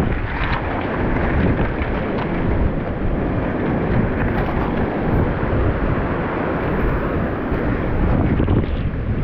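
Steady wind buffeting the microphone over the wash of surf on a beach.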